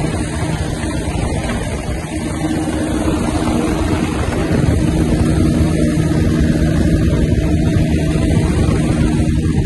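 Motorcycle engine running at road speed under wind rush, heard from the rider's own bike with a second motorcycle alongside; the engine note is steady and grows louder about halfway through.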